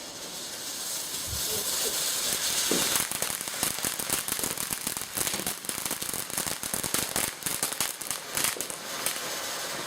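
A garden firework hissing as it gets going, then crackling with a rapid run of small pops for about six seconds before easing back to a hiss.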